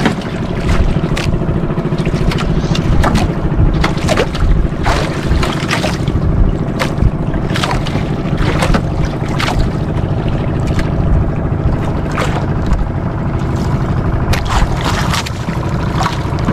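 Outrigger fishing boat's engine running steadily, with water rushing and slapping against the hull in short bursts every second or so.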